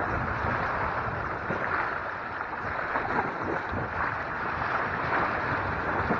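Small sea waves washing and splashing against shoreline rocks, with wind noise on the microphone.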